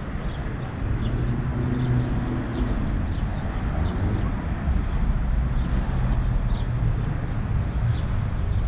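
City street traffic: cars and a van driving past with a steady rumble of engines and tyres, one passing close about a second or two in. Over it, a small bird chirps repeatedly in short falling notes.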